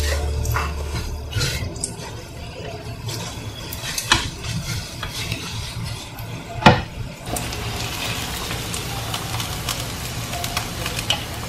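Pork belly deep-frying in hot oil, sizzling and crackling, with metal tongs clinking against the pan twice, about four seconds in and again near seven seconds; the crackle thickens after that.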